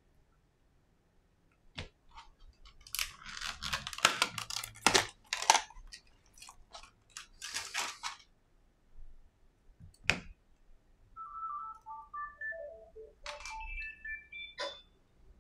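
Small parts being handled on a silicone repair mat: clicks and a crackling run of clicks as an iPhone display panel and flex cable are picked up and set down. From about two thirds of the way in, a simple tune of short electronic notes at stepped pitches plays under the handling.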